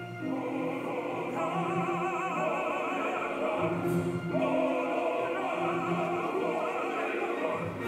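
Opera playing back over TV-connected loudspeakers: a male voice sings with a wide vibrato over an orchestra. The sound dips briefly near the start and again about four seconds in.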